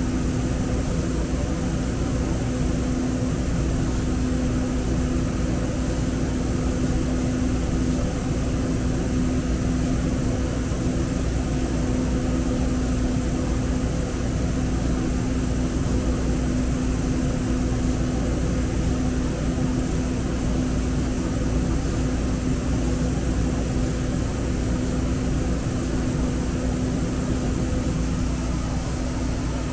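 Steady hum inside a standing Muni light rail car, its ventilation and onboard equipment running: a low rumble and hiss with a steady drone tone that fades near the end.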